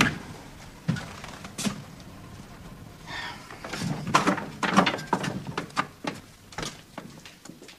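Footsteps going down a staircase: a string of uneven knocks and clicks, busiest in the middle.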